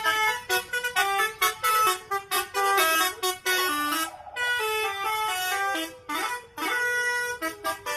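Bus 'telolet' multi-tone air horns playing tunes: quick runs of loud, pitched toots that step from note to note, broken by short gaps, with a brief pitch glide about six seconds in.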